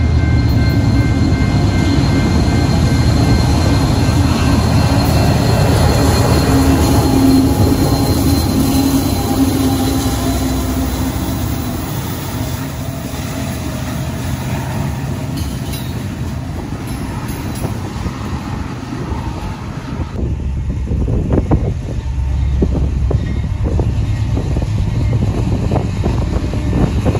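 Diesel-hauled freight trains: a Union Pacific freight passes close by, locomotive engine rumble and rolling cars on the rails, with steady high tones over it for the first several seconds. About 20 s in it cuts to a BNSF freight locomotive approaching, with a duller rumble and irregular clicks.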